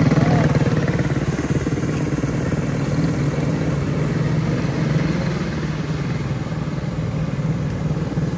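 Quarter midget race cars' small single-cylinder Briggs & Stratton Animal engines running around the oval in a steady drone, loudest as two cars pass close at the start, then easing a little as they move away.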